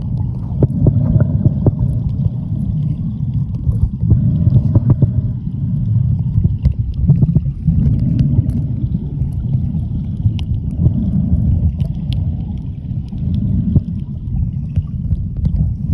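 Muffled underwater sound with the microphone submerged: a steady low rumble of water moving around it, with scattered small clicks.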